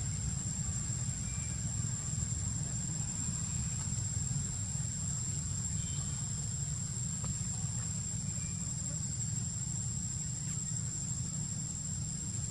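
Insects droning steadily at a high pitch, with a steady low rumble underneath.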